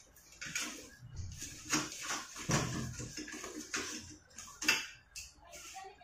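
Irregular rustling and light clicks and knocks of objects being handled.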